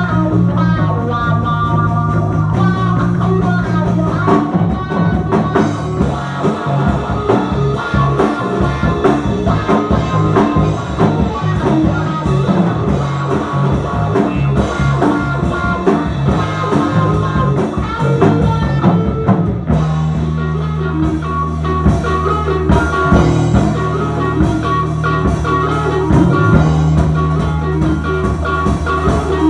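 Live progressive rock band playing: electric guitar, electric bass and drum kit, with steady drum hits throughout and the bass moving to long held low notes about twenty seconds in.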